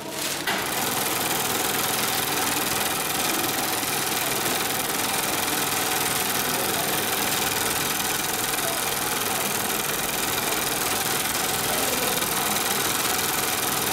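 Long-arm zigzag industrial sewing machine running steadily at speed, stitching sailcloth with an even, fast mechanical chatter that sets in about half a second in.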